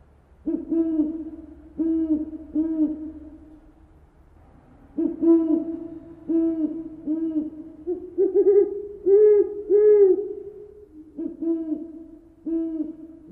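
An owl hooting: a series of short, low hoots in loose groups of two to four with pauses between them, a slightly higher run of hoots near the middle.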